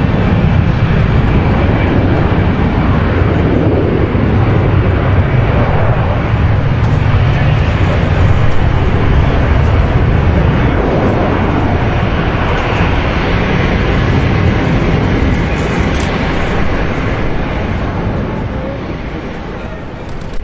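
Jet airliner's engines at takeoff power: a loud, steady rushing noise with a deep rumble that slowly fades over the last few seconds.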